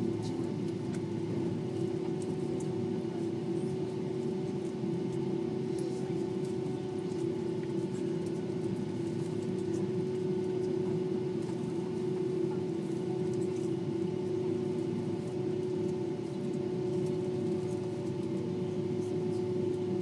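Jet airliner's engines at idle, heard inside the cabin while taxiing: a steady hum with one strong held mid-pitched tone, no spool-up. Faint light ticks sit over it.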